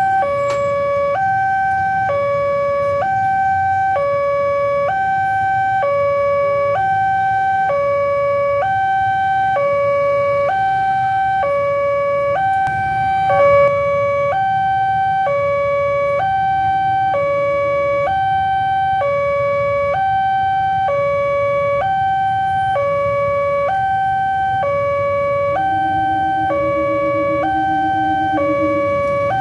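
Railway level-crossing warning alarm sounding a steady two-note high-low tone over and over, signalling an approaching train while the barrier is down. A low rumble of waiting traffic runs underneath.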